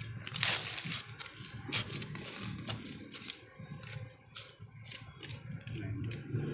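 Hand tool digging into soil around an ube (purple yam) tuber: irregular scrapes and sharp knocks in the dirt, the loudest a scrape about half a second in.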